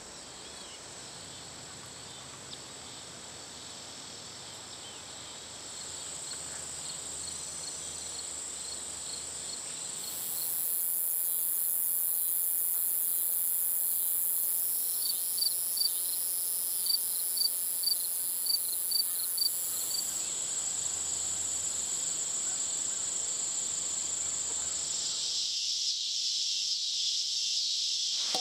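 Insects chirping and buzzing in a steady, high-pitched outdoor chorus. The chorus changes abruptly a few times, with a run of short repeated chirps in the middle.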